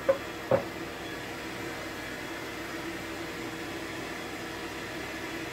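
Steady background hum with faint steady tones in it, with a brief knock about half a second in.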